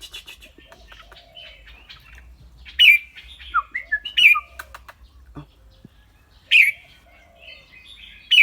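Red-whiskered bulbul singing: four loud, clear, short song phrases, with softer chattering calls between them.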